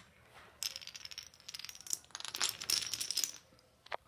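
Dominoes and wooden blocks toppling one after another in a chain reaction: a rapid run of light clicks, a short pause about two seconds in, then a louder clatter as the blocks go down, and one last click near the end.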